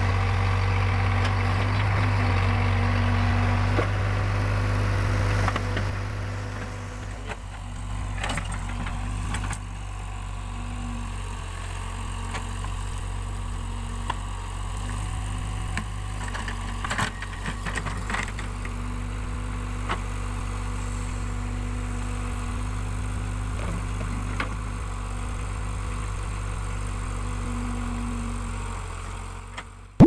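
Backhoe loader's diesel engine running steadily while it digs, louder for the first few seconds and then lower, with scattered short knocks.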